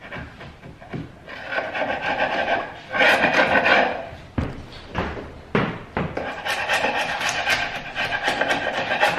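Sharp steel chisel scraping old paint off a hardwood door jamb in several strokes, the longest near the end, with a few short sharp taps in the middle.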